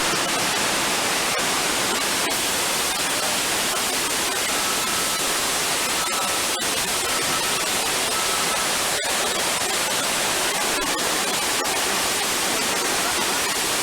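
Staged flood effect: a torrent of water rushing and cascading, heard as a steady, unbroken rush of noise.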